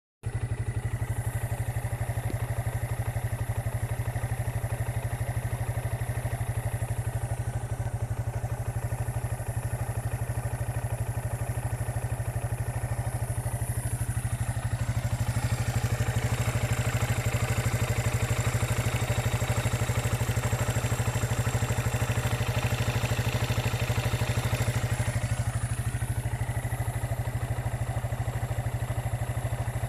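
SYM Wolf Legend motorcycle's single-cylinder engine idling steadily with a noise the owner regards as abnormal. It runs louder and brighter for about ten seconds from roughly halfway, then settles back.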